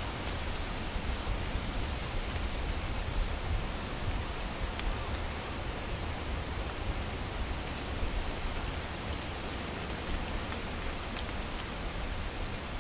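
Wind rustling the leaves of autumn trees in a steady hiss, with low gusts of wind buffeting the microphone and a few faint high ticks.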